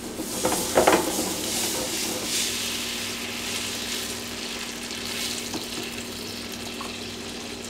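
Beef broth poured from a carton into a hot skillet of mushrooms sautéing in butter, the pan sizzling hard as the liquid hits. A few splashes about a second in, then a steady sizzle over a faint low hum.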